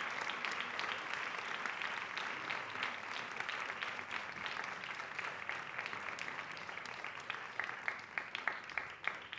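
Audience applauding in a hall, a dense patter of clapping that thins to scattered individual claps toward the end.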